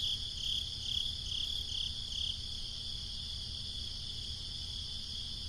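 Crickets chirping in a steady pulsing rhythm, about two chirps a second, over a continuous high insect drone; the pulsing fades out about halfway in.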